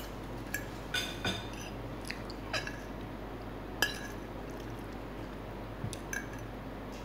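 Metal fork clinking and scraping against a ceramic plate as it twirls noodles: about eight light, scattered clinks, the sharpest about four seconds in.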